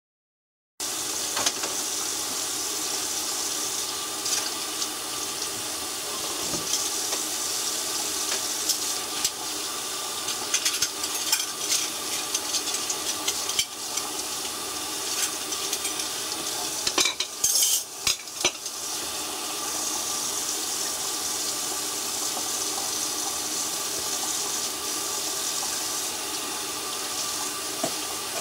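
A puppy chewing and tearing at a cardboard panel, with scattered crackles and crunches and a louder flurry of tearing about two-thirds of the way through, over a steady hiss.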